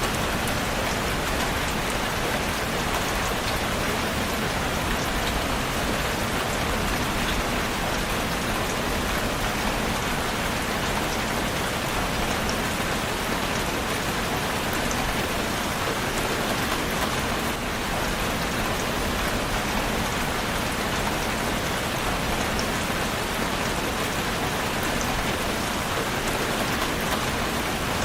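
Steady rain falling on a surface, an even hiss with small scattered drop ticks.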